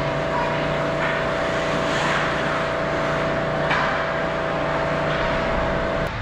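Ice rink ambience during a hockey game: a steady humming drone over the hiss and scrape of skates on ice, with one sharp clack a little under four seconds in. The hum cuts off abruptly at the very end.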